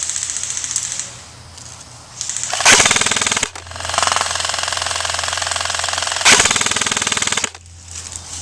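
Airsoft electric rifle firing on full auto: a rapid, even clatter of shots in three bursts, a short one at the start, another about two seconds in, and a long one lasting about three and a half seconds.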